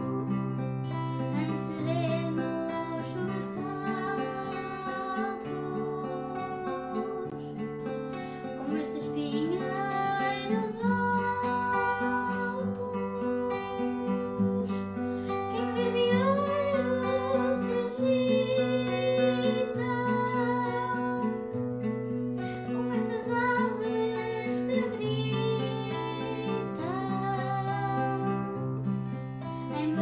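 Background music: a song with plucked acoustic guitar, a steady bass line and a singing voice gliding between held notes.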